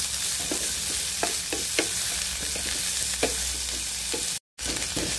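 Diced carrots, green peas and potatoes sizzling in oil in a non-stick frying pan as they are stirred, with a utensil clicking against the pan every half second to a second. The sound cuts out for a moment near the end.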